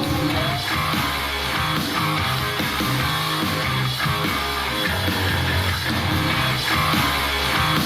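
Rock music with guitar, a steady bass line and drums, played through a JBL Flip portable Bluetooth speaker for a sound test.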